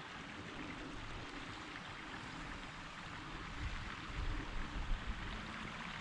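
Small moorland stream trickling steadily below, with a few soft low bumps about four to five seconds in.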